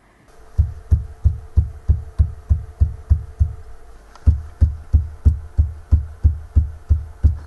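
A hand or fist thumping repeatedly on the earth-filled floor of a cave, about three dull thumps a second in two runs with a short break a little past the middle. The floor gives a hollow sound, which is taken as a sign of a filled-in stairway or passage beneath it.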